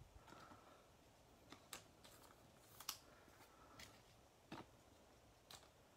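Faint clicks and light rustles of trading cards being handled, sorted and laid down by hand, a few separate ticks spread through otherwise near silence.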